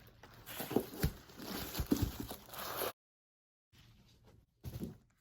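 Packaging being handled during an unboxing: rustling and light knocks of paper and box. The sound drops out to dead silence for under a second about three seconds in, then faint handling resumes.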